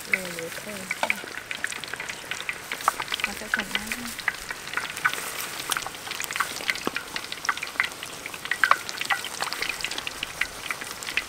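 Battered chicken pieces deep-frying in hot oil in a large wok: a steady sizzle with frequent sharp crackling pops, as more pieces are dropped into the oil.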